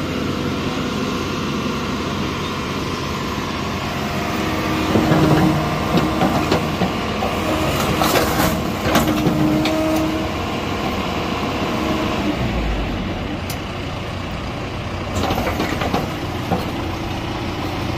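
John Deere backhoe loader's diesel engine running, with a steady whine under load from about five to ten seconds in as the arm swings and digs into brick rubble. Bricks knock and clatter about eight to nine seconds in and again near fifteen seconds.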